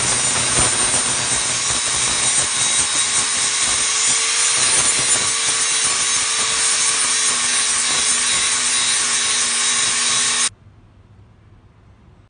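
Angle grinder with a flap sanding disc grinding down a weld on steel square tubing: loud, steady grinding over the motor's hum. The motor's note drops lower about seven seconds in, and the grinding stops abruptly about ten and a half seconds in.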